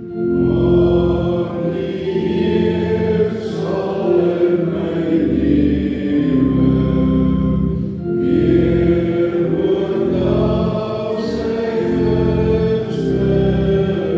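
Congregation singing a hymn in slow, long held notes, with sustained chords beneath.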